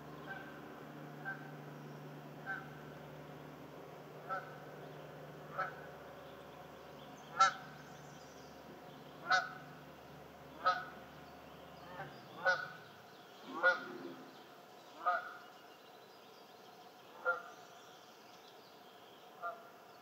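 A bird honking over and over, short calls about every one to two seconds, loudest around the middle. Under the calls is a low steady hum that fades out about two thirds of the way through.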